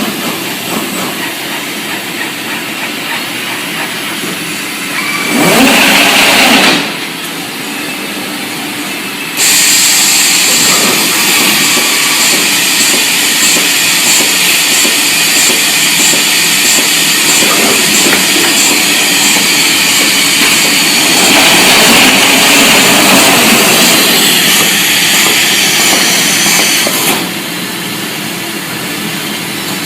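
Trumpf T5000 automated sheet-metal machine running, with steady loud machine noise. It gets louder for about a second and a half around five seconds in, then again from about nine seconds until near the end.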